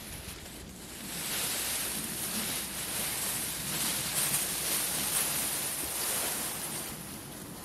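Cut leafy branches rustling and scraping as a bundle of them is dragged over the ground, a dense leafy swish that builds about a second in and holds until near the end.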